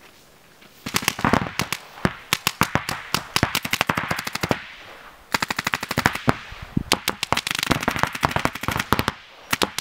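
Paintball markers firing rapid strings of shots, starting about a second in, with a short pause around the middle and a brief break near the end.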